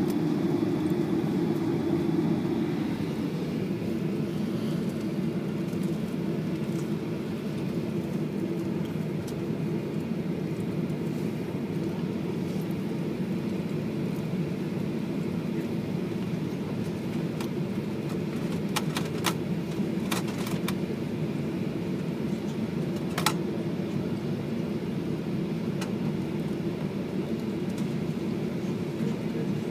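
Steady low cabin drone of a Boeing 737-800's CFM56-7B jet engines at taxi power, heard from inside the passenger cabin while the aircraft rolls along the taxiway. A quick run of sharp clicks comes about two-thirds of the way through, and one more click follows a few seconds later.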